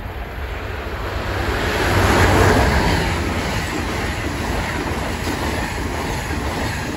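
Amtrak passenger train passing at speed on the nearest track. A rushing noise builds to its loudest about two seconds in as the locomotive goes by, then the steady rumble and rush of the stainless-steel coaches carries on.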